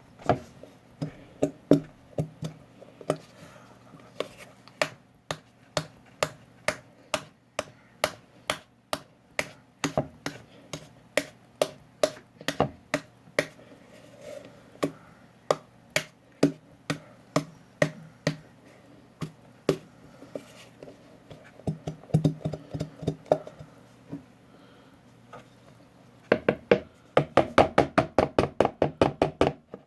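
Spoon clacking against the side of a bowl while stirring slime ingredients, about two knocks a second, speeding up into a quick run of knocks near the end.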